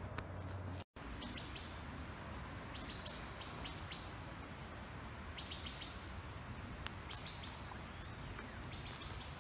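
Songbirds chirping in woodland: short clusters of quick, high chirps every second or two, with a few thin gliding notes near the end, over a steady low outdoor background hiss. The sound drops out completely for a moment about a second in.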